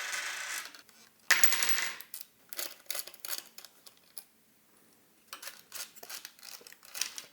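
Small metal touch-key contacts of an electronic wind instrument clinking and rattling as they are handled: two longer rattles in the first two seconds, then scattered light clicks.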